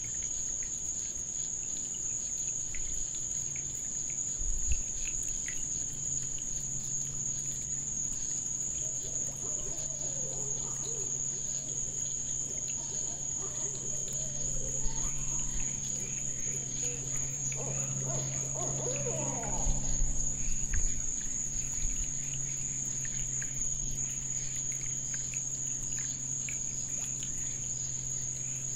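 Night-time crickets trilling in one unbroken, high-pitched chorus. A low steady hum comes in after a few seconds, and a few soft knocks stand out.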